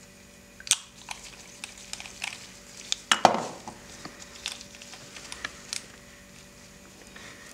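Glass nail polish bottles and their brush caps being handled: a string of small clicks and knocks, with one louder clink about three seconds in that rings briefly.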